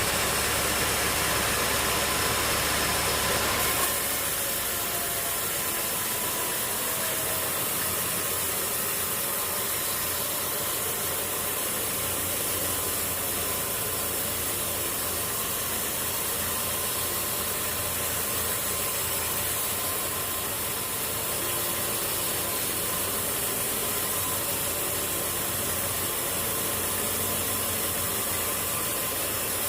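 A machine motor running steadily with a constant mechanical noise. About four seconds in the sound shifts and its deep low hum drops away.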